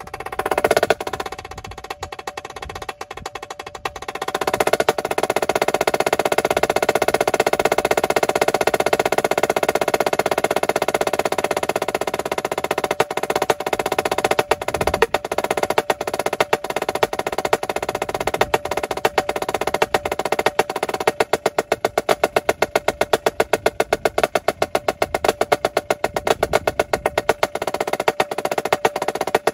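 Marching snare drum played with sticks in a rudimentary solo: a loud accent about a second in, softer playing, then a long sustained roll from about four seconds in, giving way about two-thirds of the way through to a steady run of evenly spaced accented strokes.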